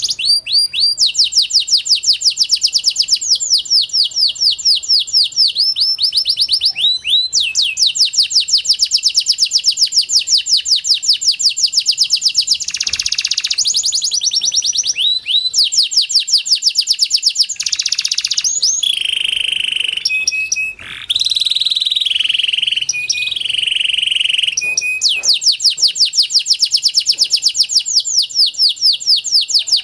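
Pied domestic canary singing a long, unbroken song of rapid rolling trills made of quickly repeated down-slurred notes. Partway through come a few seconds of held notes and buzzy phrases before the fast trills return.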